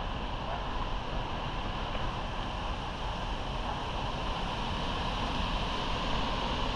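Steady rushing noise, with no shots or other distinct events.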